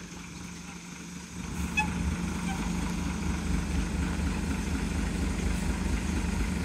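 Heavy diesel engine running, picking up to a louder, steady rumble about a second and a half in. A light clink comes just after.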